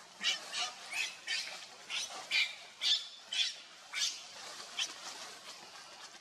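A macaque giving short, high squeaks over and over, about two a second, stopping about five seconds in.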